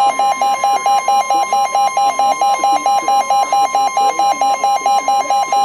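NOAA Weather Radio warning alarm tone: a steady 1050 Hz tone that signals an urgent warning, here a tornado warning, is about to be read. A second, lower tone beeps over it about five times a second.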